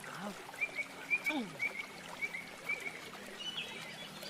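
A run of short, high chirps repeating about three times a second, with a short low hum from a person's voice at the start and a falling low sound about a second in.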